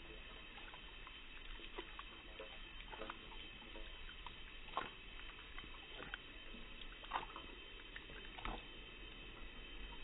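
Small dog lapping at a drinking fountain's water jet. The steady trickle is faint, with scattered wet laps and splashes; the sharpest come about five and seven seconds in.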